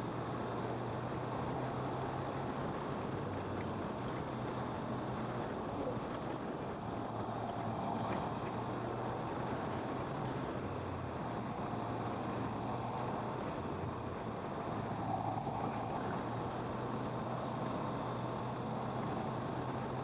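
Kawasaki motorcycle engine running under way, with a steady rush of wind and road noise; the engine's note holds and shifts between a few steady pitches as the rider changes speed.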